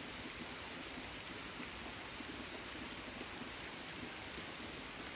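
Steady rain falling on the leaves of persimmon trees: an even hiss with a few faint drop ticks.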